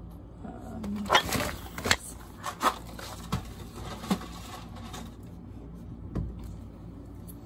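Groceries being handled and set down: a burst of plastic rustling about a second in, then several light knocks of packages and jars placed on a hard surface.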